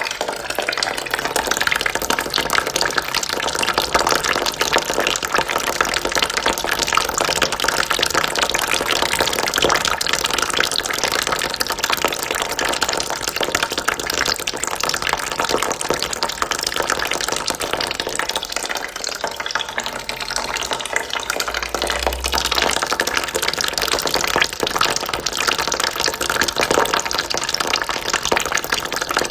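Water trickling and splashing steadily into a bucket, a continuous even stream.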